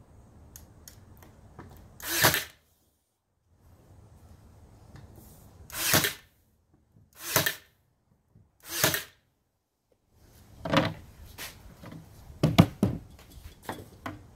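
Cordless nail gun firing nails through window casing trim, about eight shots: four spaced a second or two apart, then a quicker run of shots near the end.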